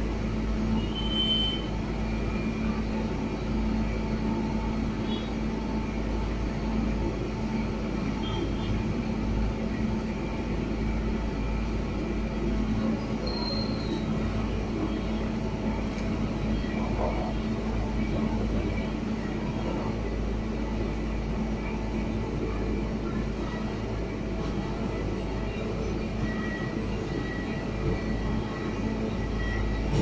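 Asphalt paver finisher's diesel engine running steadily, a constant low drone. A few faint short high chirps sound over it.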